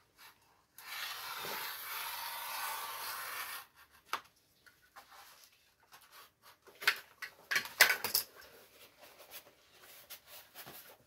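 Knife scoring a bend line into a cardboard template in one steady scraping stroke of about three seconds. After it come scattered crackles and taps as the card is handled and bent along the scores, the sharpest two near the middle.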